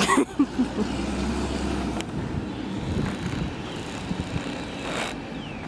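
Vehicle noise: a steady low rumble of a motor vehicle or traffic, with a sharp click about two seconds in and a brief rush of noise near the end.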